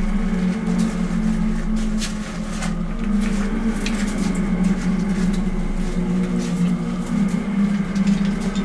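A steady low hum, with scattered crackling clicks over it.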